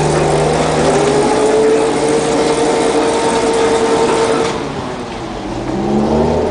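The diesel engine of a boat travel lift running steadily, with a whine that rises slightly. It eases off about four and a half seconds in, then revs up again near the end.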